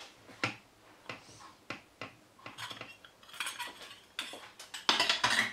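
A stainless-steel rice ring mould with its press plunger being lifted off a ceramic serving plate and put down: a run of metal clicks and clinks, then scraping and clattering, loudest near the end.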